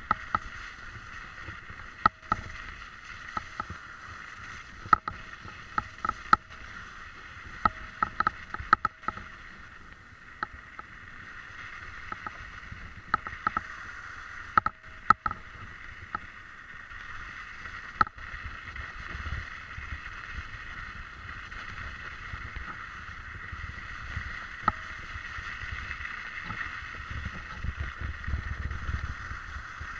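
Tyres rolling over a snowy, rutted track: a steady hiss with frequent sharp knocks and rattles from the bumps, thickest in the first half. A low rumble builds in the last ten seconds or so.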